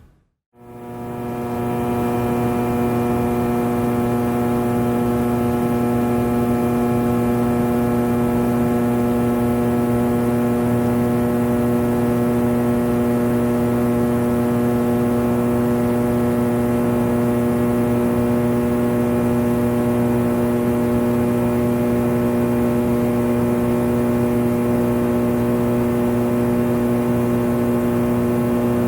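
A steady machine hum at a fixed pitch, with no change in speed, fading in at the start and out near the end.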